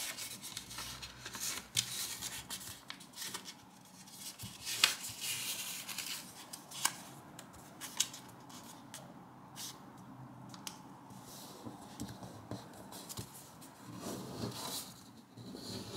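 A sheet of origami paper being folded and creased by hand: faint rustling and rubbing, with a few sharp crinkles as creases are pressed down, the loudest about five seconds in.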